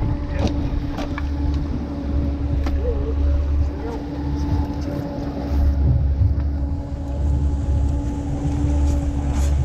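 Boat motor running steadily at trolling speed, a low rumble with a steady hum over it. A few sharp knocks sound on the boat during it.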